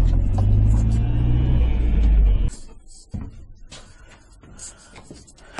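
Fiat Ducato van's engine and road rumble heard inside the cab as it drives. The rumble cuts off suddenly about two and a half seconds in, leaving a quiet hall with a few faint clicks and knocks.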